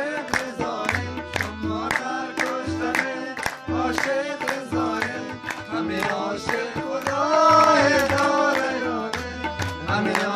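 Afghan folk song played on a harmonium, with hands clapping a steady fast beat and a man's voice singing along; the singing swells into a long held, wavering line in the middle.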